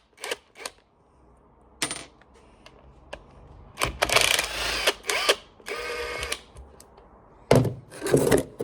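Metal clinks and rattles of tools and small parts being handled on a workbench during the strip-down of a cordless impact wrench. The sounds come as several separate bursts, the loudest near the end.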